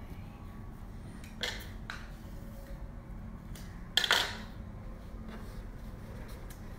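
A few short, light knocks and clatters as a plastic cake comb is handled at the counter, the loudest about four seconds in, over a steady low room hum.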